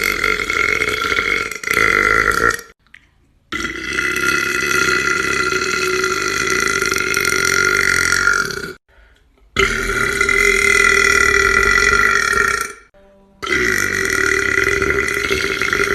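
A man's long, loud, drawn-out burps, one after another: four in a row, each held for two to five seconds, with short breaks between them.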